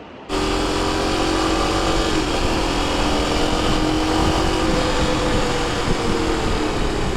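Motorcycle engine running at a steady cruising speed under heavy wind rush on the microphone, beginning abruptly just after the start.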